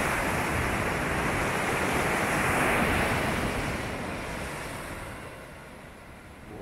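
Ocean surf breaking and washing up a sandy beach, a steady rush that swells about two and a half seconds in and then dies away toward the end.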